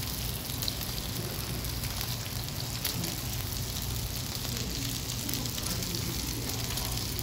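Thin-sliced pork belly and kimchi sizzling on a paper-lined tabletop grill plate: a steady hiss with a stream of small crackles, over a low steady hum.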